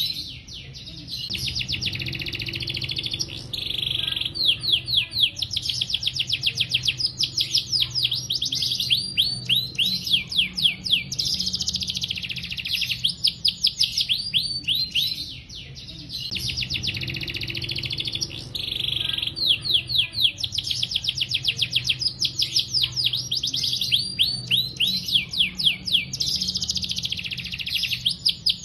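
Domestic canary in full song: long runs of rapid, high trills and rolls, one fast string of repeated notes after another with only brief breaks. A faint steady low hum lies underneath.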